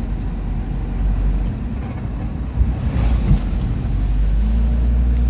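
Steady low rumble of a motor vehicle running, with a few short knocks around the middle.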